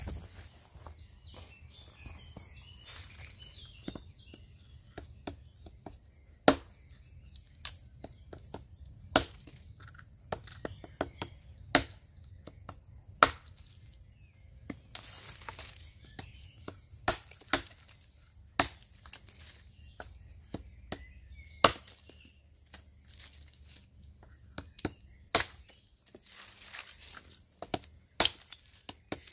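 Tetrao Panus hatchet chopping small dry branches against a log: a dozen or so sharp wooden chops at irregular intervals, beginning a few seconds in. Insects keep up a steady high buzz underneath.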